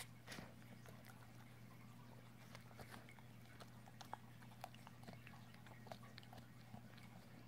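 A dog chewing a rawhide bone: faint, irregular clicks and crunches of teeth working the hide.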